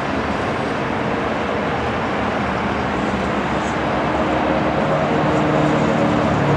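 Beechcraft F90 King Air's twin turboprop engines running up at the runway threshold for takeoff, growing louder, with a steady droning tone emerging about halfway through over a constant rushing noise.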